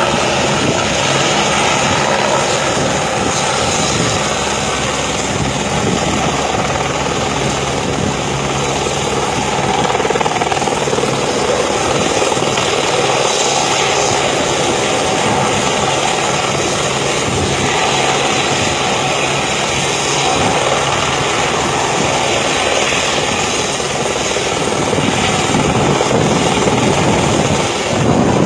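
Army rescue helicopter running steadily: loud rotor and engine noise that barely changes throughout.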